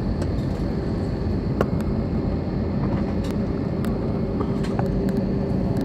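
Steady airliner cabin noise during taxi: the jet engines and air system make a constant low hum with a held mid-pitched tone. Light clicks come and go through it.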